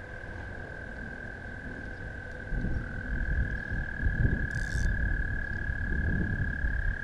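American toads trilling: one long, steady high-pitched trill, with a slightly higher trill taking over about three seconds in. From about two and a half seconds in, a louder low rumble on the microphone.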